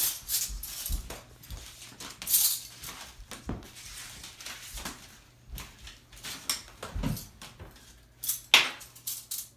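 Plates and cutlery clattering and clinking in irregular knocks while dinner is served, with a few louder clatters near the start, a couple of seconds in, and near the end.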